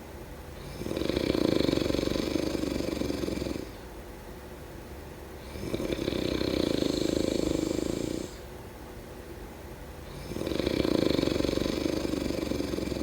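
Snoring in a slow, even rhythm: three long snores, each about three seconds, with quieter pauses between them, one roughly every four and a half seconds.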